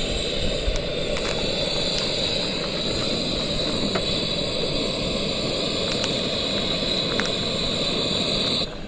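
Portable gas camping stove burner running under a pot of water on the boil: a steady rushing hiss that cuts off suddenly near the end.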